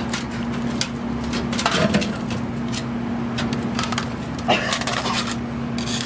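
Irregular knocks and scrapes of a laptop LCD panel being dragged out of a microwave oven, its edges catching on the oven cavity and glass turntable, with clusters of clatter about a second in and again near the end, over a steady low hum.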